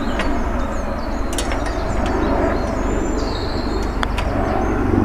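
Steady outdoor background noise on an open golf course, with a few faint, short, high bird chirps.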